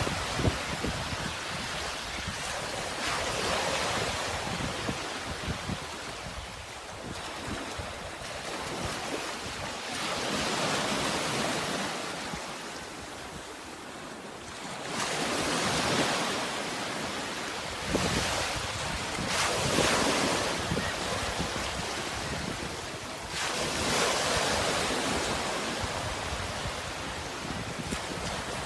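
Sea waves washing in, the surf swelling and falling back every few seconds, with some wind.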